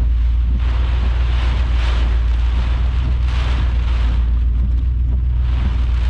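Strong storm wind buffeting the microphone: a constant heavy low rumble with a hiss that swells and fades in gusts every second or so.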